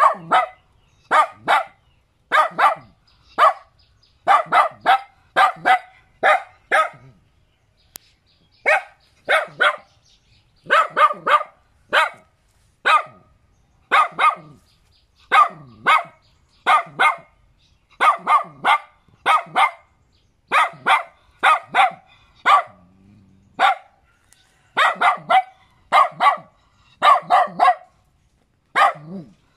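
A small curly-coated white dog barking repeatedly, in quick runs of two or three sharp barks with short pauses between.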